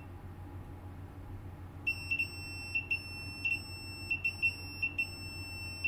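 Multimeter continuity beeper sounding in short, irregular beeps from about two seconds in as the probes touch the board, ending in a longer steady tone. The beep marks a short to ground on the 3.3 V power-good rail. A faint low hum runs underneath.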